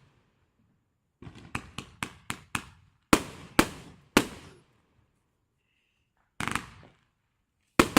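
Fireworks exploding. First comes a quick string of about seven sharp bangs, then three louder booms about half a second apart, a short crackling burst, and one more bang at the end.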